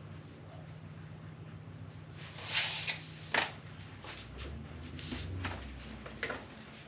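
A few brief knocks and scuffs of objects being handled and set down, over a low steady hum.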